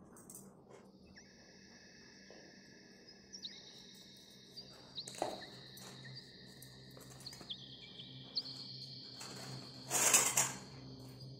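Cardboard box handled and opened by hand: scattered light clicks and rustles, with a louder rustle of cardboard about ten seconds in. A steady high-pitched whine sounds underneath.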